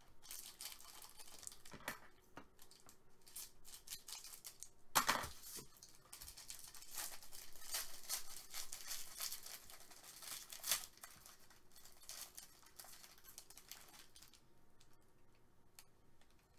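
Foil trading-card pack being torn open and crinkled by hand: a dense, uneven crackle of foil, with two louder sharp crackles about five and eleven seconds in. It dies down over the last couple of seconds.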